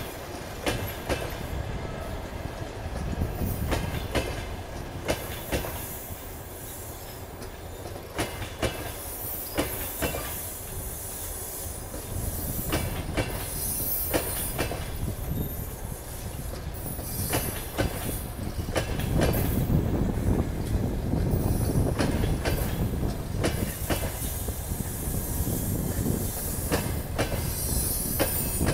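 Passenger coaches rolling past, their wheels clicking irregularly over rail joints over a steady rumble, louder in the last third as the final coaches go by.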